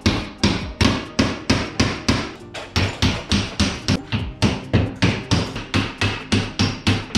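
Hammer blows at a steady pace of about three a second, chipping hard-glued ceramic wall tiles off a kitchen splashback.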